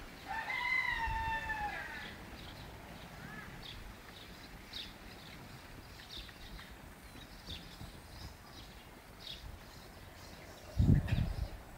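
A large fowl's long pitched call, about a second and a half, right at the start, ending in a falling note. Scattered faint small-bird chirps follow, and a loud low thump comes near the end.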